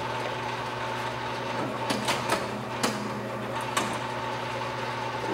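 Hardinge HLV-H toolroom lathe running with the carriage on threading feed: a steady hum with a steady whine. Several sharp clicks and knocks come in the middle as the carriage controls are worked.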